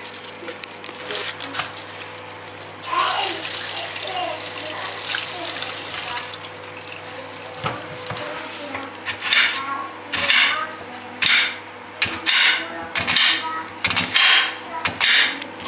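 A kitchen tap runs into a stainless steel sink for about three seconds. Then a knife cuts through an onion on a glass cutting board, each stroke a sharp tap on the glass, about once a second.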